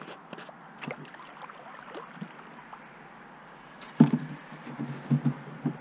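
Light paddle drips and splashes, then a sharp hollow knock on the kayak's hull about four seconds in, followed by several lighter thumps as the kayak comes in to the bank beside a moored canoe.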